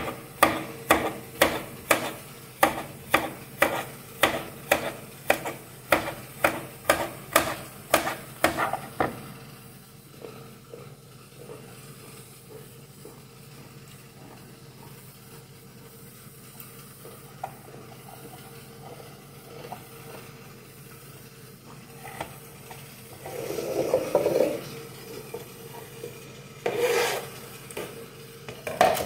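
Kitchen knife chopping cucumber on a plastic cutting board, a steady run of sharp knocks about two a second that stops after about nine seconds. Quieter cutting follows, then two louder rustling, scraping sounds near the end.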